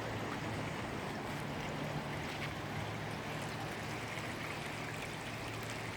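Backyard pond waterfall running: a steady splash and trickle of water over the drop, with a faint low hum under it.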